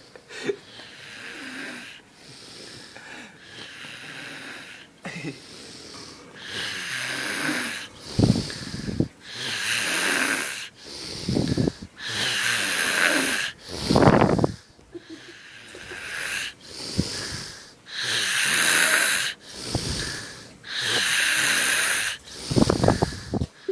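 Loud, wheezy snoring in slow, regular breaths that grow louder after the first few seconds, with three deep rattling snorts, a sound likened to Chewbacca.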